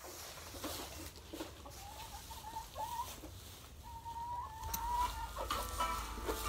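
Hens calling in a string of drawn-out, even-pitched notes. Music starts to come in near the end.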